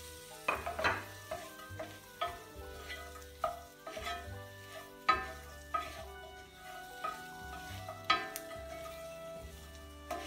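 Wooden spatula stirring fried fish pieces and bell peppers in a cast-iron skillet, with irregular knocks and scrapes against the pan over the light sizzle of frying.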